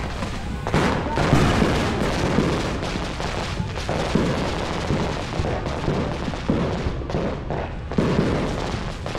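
Many fireworks going off at once: a dense, unbroken run of overlapping bangs and crackling pops, near and far, with a ground fountain firework spraying crackling sparks close by.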